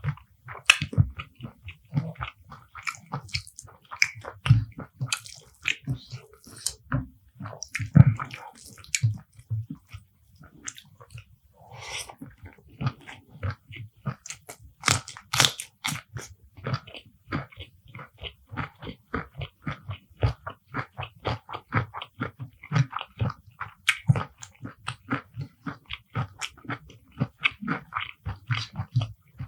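Close-up eating sounds: biting, crunching and wet chewing of spicy beef curry with rice and raw vegetables, with mouth smacks. From a little under halfway through, the chewing settles into a steady rhythm of about four chews a second.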